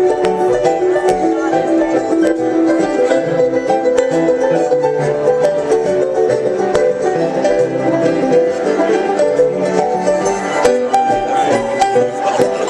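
Live bluegrass band playing an instrumental break, with fast banjo picking prominent over steady accompaniment.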